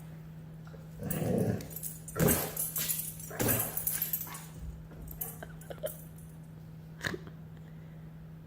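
A dog vocalizing in several short bursts of grumbling and whining during the first four seconds, followed by a few faint sharp clicks.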